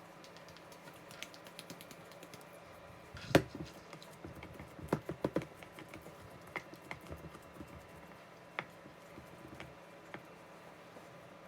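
Scattered light clicks and taps of kitchen work, with a louder knock a little over three seconds in and a quick cluster of knocks around five seconds.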